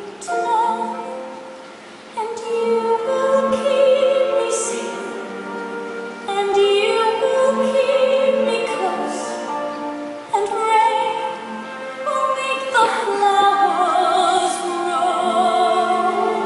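A solo singing voice with vibrato, holding long notes over an orchestra: a ballad from a stage musical.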